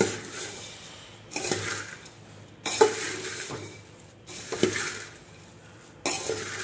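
A metal spoon stirring popped sorghum, puffed rice and peanuts in a steel pot. Five scraping, rustling strokes come about every second and a half, each sharp at first and then fading.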